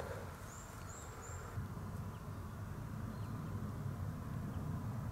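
Dawn forest ambience: three short, high bird chirps in the first second and a half. Then a faint, low, wavering rumble sets in under a few more thin, scattered bird calls.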